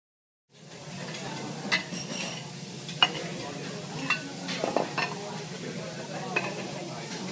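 Teppanyaki griddle work: a steady sizzle with sharp metallic clinks and taps of the chef's utensils and plates on the steel cooktop, about five of them, the loudest about three seconds in. The sound starts abruptly about half a second in.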